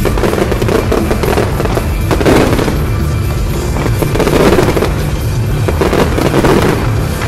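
Fireworks going off in a dense run of crackles and bangs, swelling louder about two, four and a half, and six seconds in, over loud show music.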